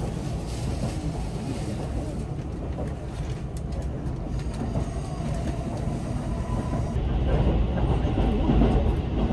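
JR Central 373 series electric express train running, heard from inside the passenger car: a steady rumble of wheels on the rails that grows louder and heavier about seven seconds in.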